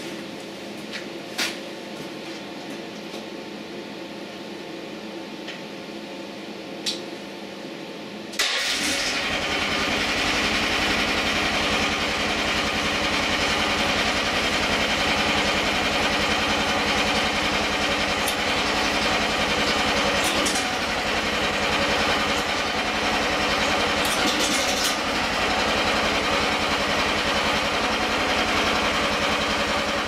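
QH12 mini excavator's engine starting abruptly about eight seconds in, after two sharp clicks, then running steadily.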